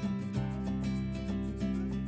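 Instrumental background music with a steady beat of pitched notes.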